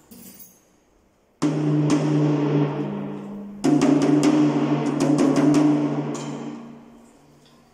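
A PDP tom drum is struck in quick runs of hits, ringing with a steady low pitch while its heads are being tuned. It starts suddenly about a second and a half in, comes again louder about three and a half seconds in, and fades out near the end.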